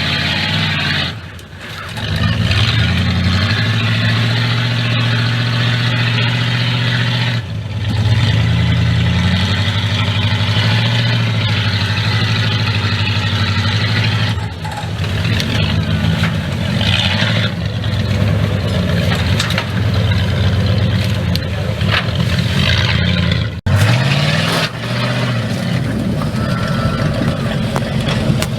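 Off-road vehicle's engine revving up and down again and again under load while crawling a rock ledge, with a sudden drop in revs near the start and another about two-thirds of the way through.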